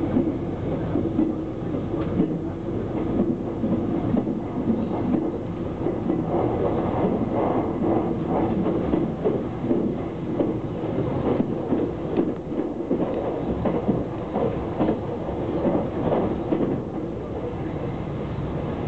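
Running noise of a fast passenger train heard from inside the carriage: a steady rumble of the wheels on the rails, with irregular rattling.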